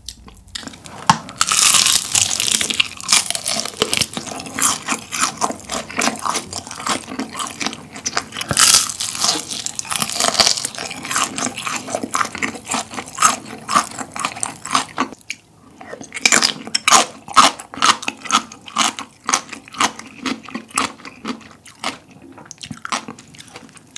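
Crispy honey-glazed fried chicken (Honey Combo) being bitten and chewed close to the microphone: a long run of quick, sharp crunches, with a short pause about 15 seconds in.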